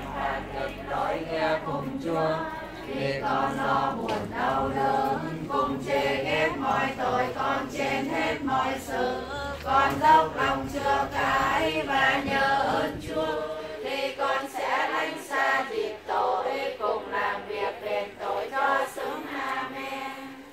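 Congregation singing a Catholic hymn together, many voices in one melody.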